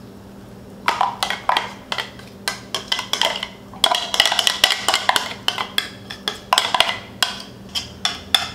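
A spoon scraping and tapping against a food processor bowl as pesto is scraped out, a quick irregular run of clicks and knocks that starts about a second in and is thickest in the middle.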